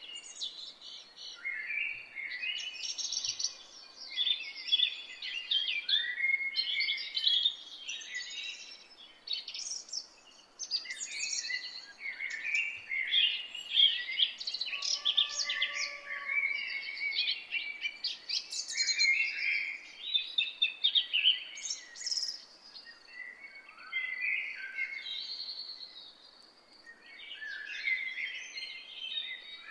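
Several songbirds singing and chirping at once: busy overlapping high warbles, trills and chirps with short pauses, over a faint steady background hiss.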